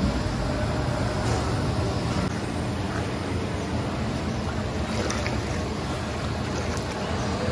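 Water sloshing and swirling as a metal ladle stirs chickpeas in a large pot of water, over a steady low rumble.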